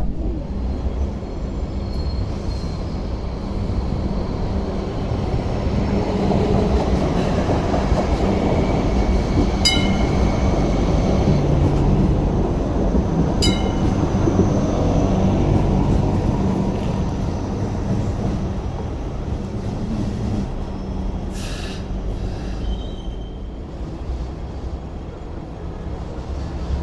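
Hong Kong Light Rail train running past at close range, a steady rumble of wheels on rail and traction motors that grows louder in the middle and then fades. Two sharp clicks sound about four seconds apart near the middle.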